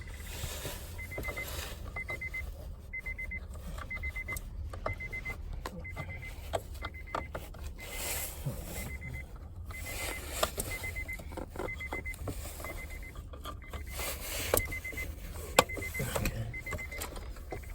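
A faint short electronic beep repeating about once a second, with scattered clicks and knocks of hands working on car wiring and trim, one sharp click near the end.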